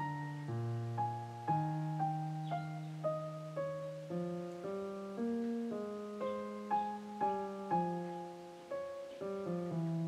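Background piano music: a slow, gentle melody of struck notes, about two a second, over held low notes.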